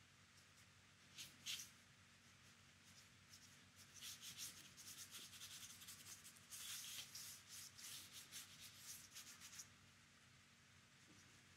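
Paintbrush rubbing and scratching over watercolour paper: two short strokes about a second in, then a run of quick strokes for about five seconds in the middle. Faint throughout.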